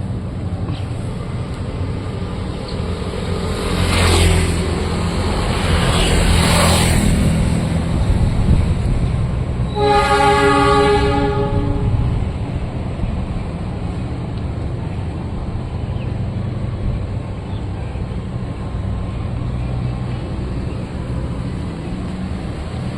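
A train running past a level crossing, with a steady low engine rumble. Its horn sounds once, about ten seconds in, held for about two seconds.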